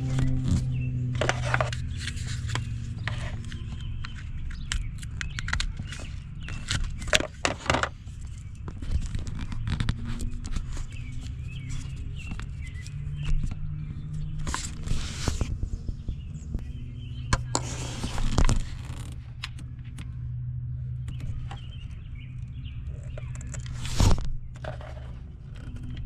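Irregular clicks, taps and scrapes of hand work, such as handling wire and tools, over a steady low hum.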